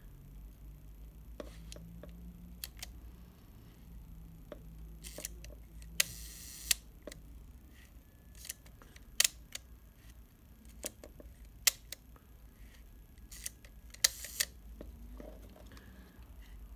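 Compur leaf shutter of a Rolleiflex Standard being cocked and fired by hand over and over: a series of sharp mechanical clicks. One firing, about six seconds in, runs on as a brief buzz before its closing click.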